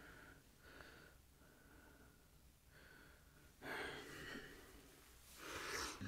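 Near silence broken by two short, hissing breaths close to a microphone, about three and a half and five and a half seconds in.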